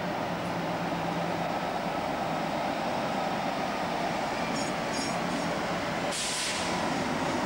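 Class 60 diesel locomotive hauling a freight train past, its engine running steadily and growing louder as it approaches. A short hiss comes about six seconds in.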